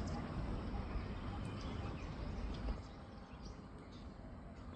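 Outdoor ambience: a steady low rumble that drops away about three seconds in, with a few faint bird chirps and ticks.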